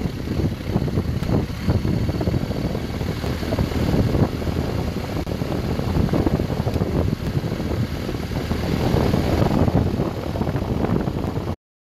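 Wind buffeting a microphone in uneven gusts, with a BMW R 1250 GS Adventure motorcycle's engine running underneath. The sound cuts off abruptly near the end.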